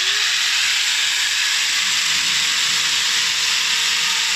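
Bosch angle grinder fitted with a chainsaw bar and chain, running and cutting into wood: a loud, steady noise.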